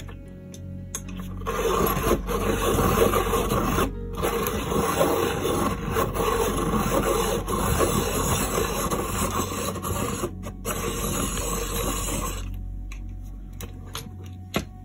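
Faber-Castell Polychromos coloured pencil being sharpened in a pencil sharpener: a steady grinding rasp that starts about a second and a half in and runs for about eleven seconds, with two brief breaks, about four and ten seconds in.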